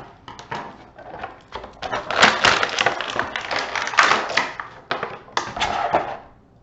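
Plastic crinkling, rustling and clicking as action-figure packaging and parts are handled, loudest in the middle and stopping shortly before the end.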